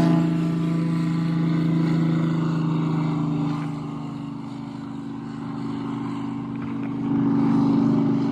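Float plane's piston engine and propeller running at a steady pitch. It grows fainter through the middle and louder again about seven seconds in.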